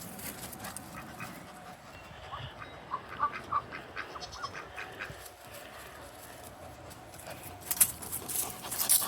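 Farm animal calls: a quick run of short calls about two and a half seconds in, then sharp knocks or rustling near the end.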